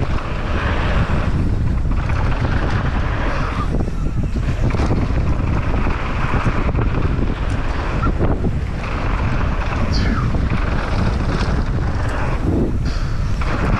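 Heavy wind buffeting the microphone of a mountain bike descending a dirt downhill trail at speed, with tyre noise on the dirt and an occasional knock as the bike goes over bumps.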